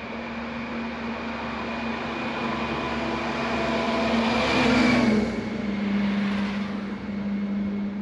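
A lorry passes on the road alongside, its noise building to a peak about five seconds in and then dropping in pitch as it goes by, over a steady hiss of road and wind noise from riding a bicycle.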